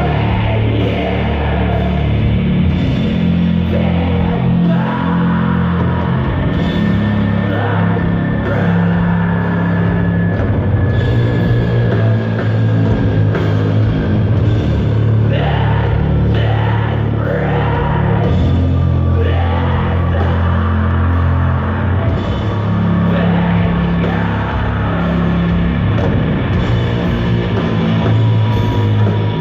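Doom metal band playing live: heavily distorted guitars and bass holding slow, loud low notes over drums, with notes sliding up and down in pitch around the middle.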